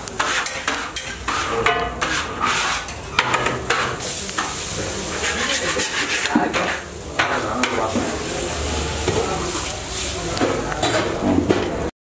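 Metal spatula scraping and tapping on a flat griddle over sizzling dosas, many quick strikes over a steady frying hiss. It cuts off suddenly near the end.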